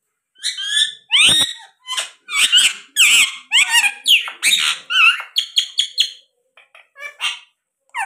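Indian ringneck parakeet calling: a quick run of about a dozen high chirps and chatter with pitch sliding up and down, followed by a few short, clipped chirps near the end.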